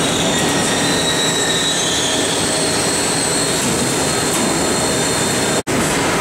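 Milking parlour machinery running: a loud steady hiss with thin high-pitched whines over it, cutting out for an instant near the end.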